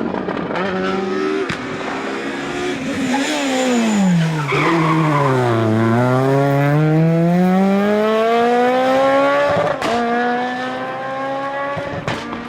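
Rally car engine at full effort: its note falls as the car brakes and changes down, bottoms out about halfway, then climbs steadily for about four seconds before dropping sharply at an upshift about ten seconds in. Tyre noise sounds as it slows.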